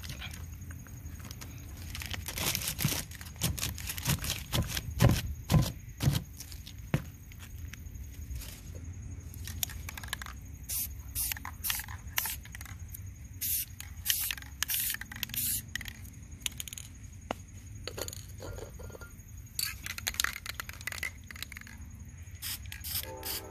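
A spray-paint can being handled and used: its mixing ball rattling in clacks as it is shaken, and short hissing bursts of spray paint. A tonal stack near the end.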